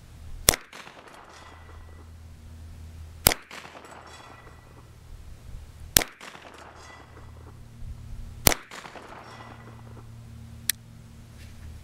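Ruger Mark III heavy-barrel .22 LR semi-automatic pistol fired four times, about two and a half to three seconds apart, each sharp crack followed by a faint ringing tail. Near the end comes a single lighter click as the firing pin strikes a cheap bulk-pack round that fails to go off.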